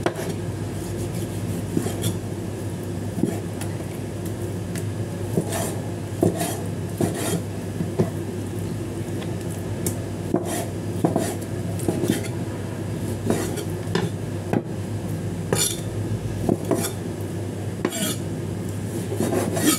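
A cleaver slicing raw beef: the blade knocks through onto the chopping surface in short, unevenly spaced clicks, roughly once a second. A steady low hum runs underneath.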